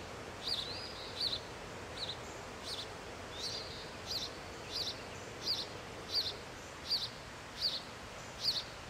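House sparrow chirping: a regular series of short, sharp cheeps, about one every three-quarters of a second, getting louder toward the end. A few fainter thin calls and a steady outdoor hiss lie beneath.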